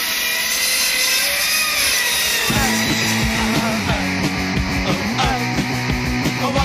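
A chainsaw running, then about two and a half seconds in a punk rock band comes in with distorted electric guitars, bass and fast drums.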